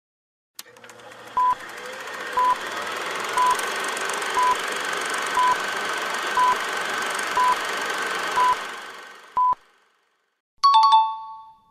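Quiz countdown timer: nine short electronic beeps, about one a second, over a steady rushing hiss that fades in and then out. About a second after the last beep, a brief, louder chime of several tones marks time up.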